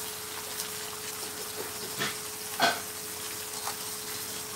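Pork belly (samgyupsal) frying on a tabletop grill, a steady sizzle with spattering oil, with a couple of short clicks of metal tongs about two seconds in. A faint steady hum runs underneath.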